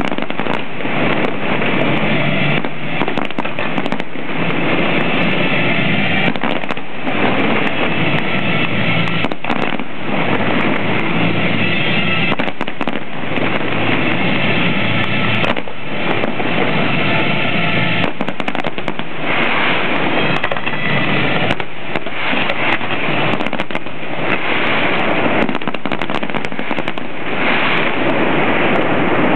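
A dense barrage of aerial firework shells bursting without pause, the reports overlapping into one continuous loud noise: the closing finale of a fireworks display.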